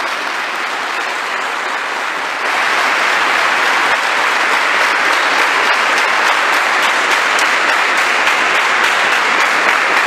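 Large audience of soldiers applauding in a hall, a dense even clapping that swells louder about two and a half seconds in.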